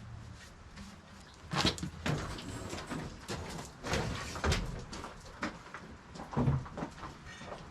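A string of irregular knocks and clunks, as of things being handled and set down, the loudest about one and a half seconds in and again near the end.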